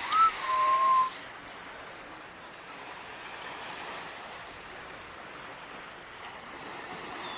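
Surf washing on the beach, a steady rush of waves. Right at the start a sharp click, then a short whistle-like tone that rises and holds for under a second.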